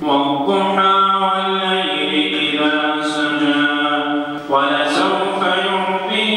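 A man's voice chanting Quranic recitation in long, melodic held notes, the imam reciting aloud during the standing part of the prayer. The chanted phrases shift about two seconds in and break briefly about four and a half seconds in.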